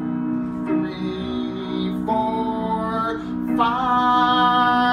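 Song intro: a voice sings long held notes over a steady musical accompaniment. One note comes in about two seconds in, and a louder, slightly rising one follows near the end.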